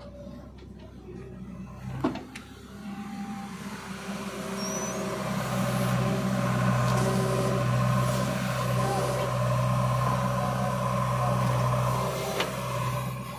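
Diesel engine of a JCB 3DX backhoe loader running while the backhoe arm digs soil, growing louder about halfway through and holding steady, then easing off near the end. A sharp knock about two seconds in.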